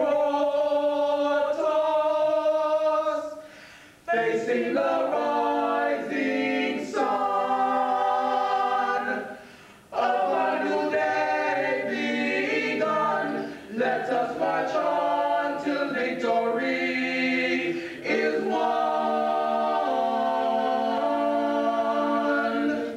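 Male vocal quartet singing a cappella in close harmony: held chords in phrases of a few seconds, with short breaks between phrases.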